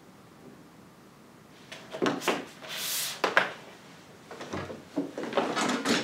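Objects handled on a wooden table: a run of light knocks and rubbing, with a short sliding scrape, starting about two seconds in and coming again in a second cluster near the end.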